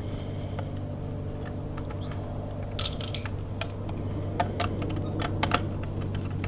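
Small metal clicks and taps of a screwdriver and needle-nose pliers on the line-wire terminal screws in a variable-speed pool pump motor's wiring box. A handful of sharper clicks come in the second half, over a steady low hum.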